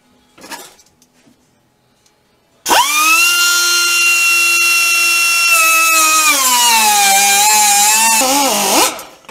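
Small pneumatic die grinder with a cut-off wheel, starting about three seconds in with a high, steady whine. Its pitch drops and wavers as the wheel bites into old, hard steel, and it stops abruptly just before the end.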